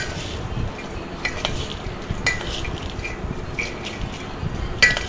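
A spoon clinking and scraping against a bowl as bhelpuri is stirred and tossed: irregular short clinks every half second or so, the loudest near the end.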